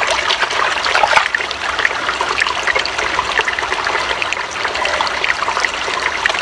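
Small mountain spring trickling and splashing, a steady run of water with many small splashes.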